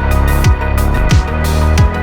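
Electronic music with a heavy bass line and a steady beat: a deep kick that drops in pitch about every two-thirds of a second, with sharp high hits between the kicks.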